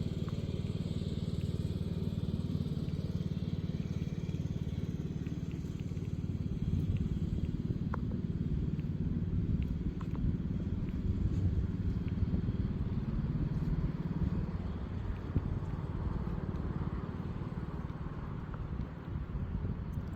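A steady low motor-like rumble, with a few faint clicks.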